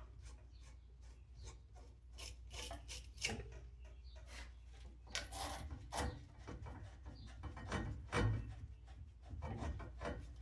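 Copper pipe end being scrubbed clean with an abrasive, a series of short, irregular rasping strokes, the preparation that lets the solder take.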